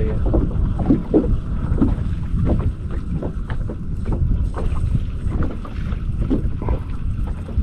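Wind buffeting the microphone aboard a fishing boat: a steady low rumble, with faint short knocks and sounds scattered through it.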